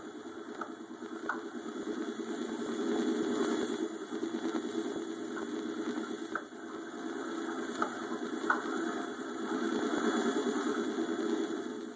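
A steady motor-like hum with scattered faint ticks.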